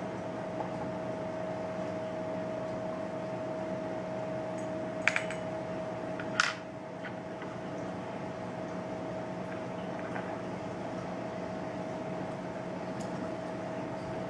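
Steady mechanical hum holding one even tone. About five seconds in, two or three quick light clinks, and a sharper click a second and a half later.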